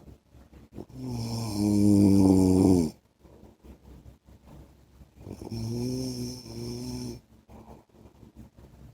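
A man snoring: two snores of about two seconds each, some four seconds apart. The first is the louder and drops in pitch as it ends.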